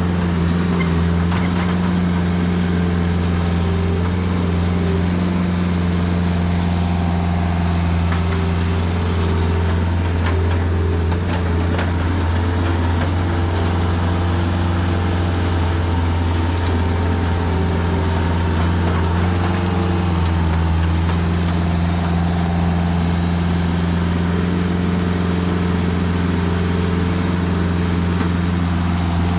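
New Holland L553 skid steer loader's Kubota diesel engine running steadily as the machine works, its note dipping for several seconds in the middle. A few faint clicks are heard around the middle.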